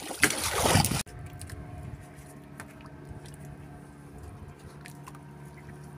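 Wind and water noise on an open fishing boat for about a second, cut off abruptly. Then a quieter steady low hum with a few faint clicks.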